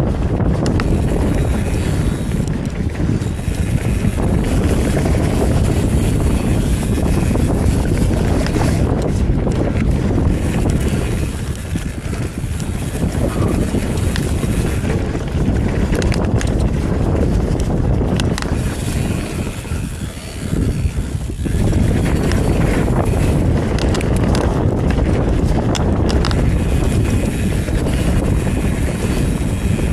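Wind rushing over the action camera's microphone while a Commencal Meta TR29 mountain bike rolls fast down a dirt singletrack, its tyres on the dirt and its parts clattering over bumps in many small clicks and rattles. The rush eases briefly twice, about twelve and twenty seconds in.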